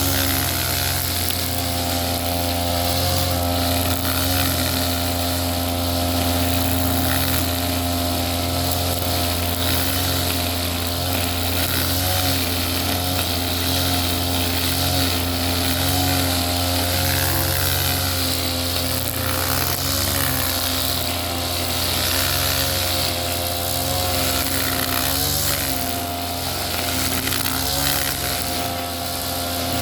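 Small Ogawa petrol engine running steadily at a fairly constant speed, its pitch wavering slightly now and then.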